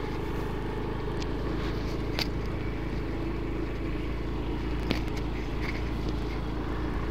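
Small motorbike engine running at a steady speed while riding, with a few short sharp clicks.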